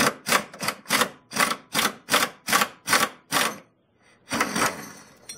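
Hand ratchet wrench being worked back and forth on a rear subframe bolt, its pawl rasping on each back stroke about three times a second, backing the bolt off. The strokes stop for a moment past the three-second mark, then a few more follow.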